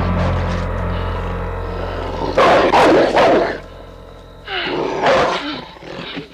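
A rabid St. Bernard snarling and barking in loud rough bursts, the loudest about two and a half seconds in and another near five seconds, over a steady low hum.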